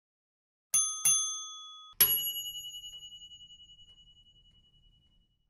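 Bell-like chimes: two short quick rings, then a louder ring about a second later that fades out over about three seconds with a fast wavering.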